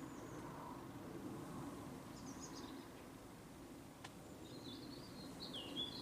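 Faint outdoor ambience with a few small birds chirping: short high calls about two seconds in, and a run of chirps from about four and a half seconds to the end. A single faint click comes near the four-second mark.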